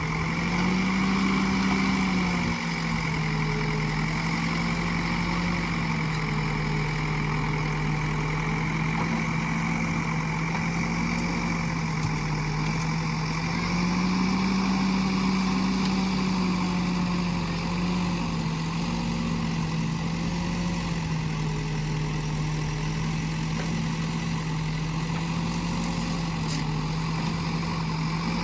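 Backhoe loader's diesel engine running steadily, its pitch rising briefly about a second in and again midway as it speeds up under load.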